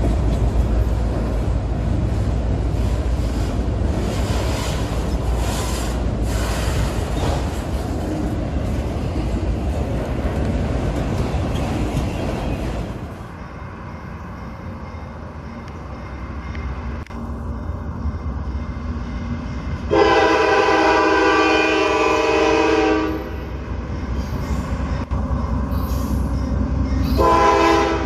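Train rumbling past with heavy low engine and wheel noise, which drops away about halfway through. A locomotive horn then gives one blast of about three seconds, and a second blast begins just at the end.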